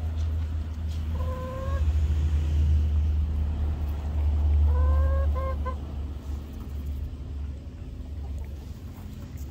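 A hen calls twice: a short drawn-out note about a second in, then a longer note followed by two quick short ones around five seconds in. A steady low rumble lies underneath, strongest in the middle.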